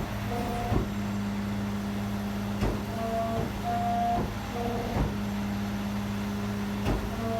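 Steady low machine hum, with a sharp click about every two seconds and short mid-pitched tones coming and going.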